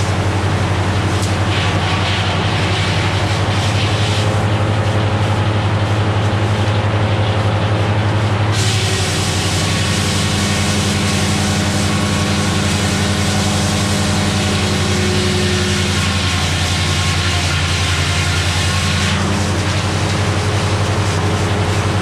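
Cummins six-cylinder diesel power unit running steadily, driving a Meadows No. 1 circular sawmill. From about 8 seconds in until about 19 seconds in, the saw blade cuts through a log, adding a loud hiss over the engine's drone.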